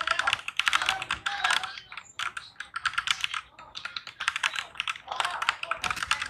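MAGEGEE MK-Box mechanical keyboard being typed on fast: dense runs of key clicks, with short lulls about two seconds in and around four seconds in.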